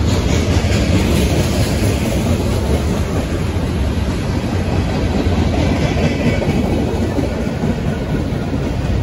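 Cars of a CSX manifest freight train rolling past: a steady, loud noise of steel wheels running on the rails.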